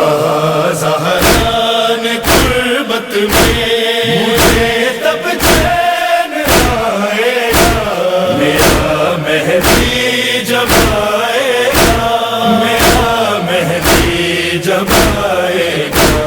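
Noha interlude: a chorus of voices chanting without words over a steady percussive beat, about three beats every two seconds.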